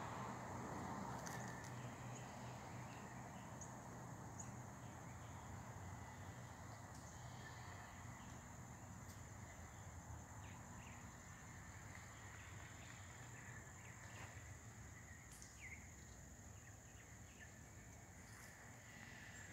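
Faint outdoor ambience: a steady high-pitched insect drone with a few short bird chirps, over a low rumble that slowly fades.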